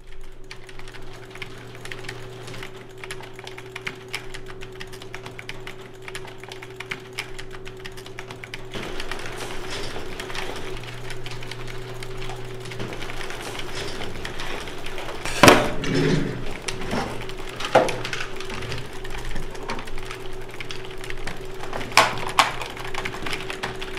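Several computer keyboards being typed on at once, a fast, uneven clatter of key clicks over a steady electrical hum. One louder knock stands out about two-thirds of the way through.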